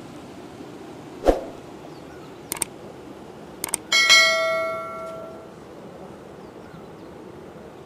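Subscribe-button overlay sound effect: a thump, a few quick mouse clicks, then a notification bell ding that rings out for about a second and a half over a faint steady hiss.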